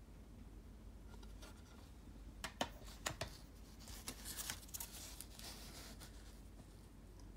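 Hard plastic graded-card slabs handled and swapped: a few sharp plastic clacks about two and a half to three seconds in, then a rustling scrape as a slab slides against the others and the hands.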